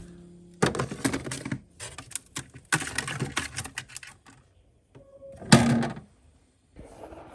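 Irregular clattering and clicking in several bursts, the loudest a little over five and a half seconds in.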